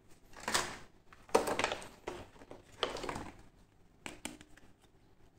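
Plastic toys being handled in a clear plastic blister tray: three rustling, crackling scrapes of the plastic packaging, then two light plastic clicks about four seconds in.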